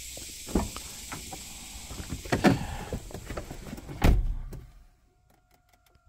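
A Toyota Prius car door is opened with a few clicks and knocks, then shut with a heavy thump about four seconds in. After the thump the outdoor background gives way to the quiet of the closed cabin.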